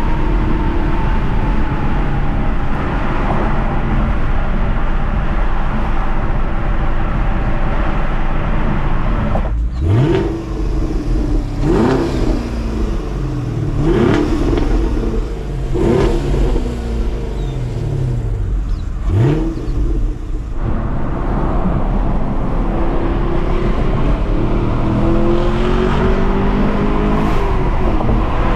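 2022 Chevrolet Camaro SS 1LE's 6.2-litre LT1 V8 running steadily under way, then revved hard five times about two seconds apart, each rev jumping up quickly and dropping back more slowly. It then settles back into steady running that climbs gently near the end.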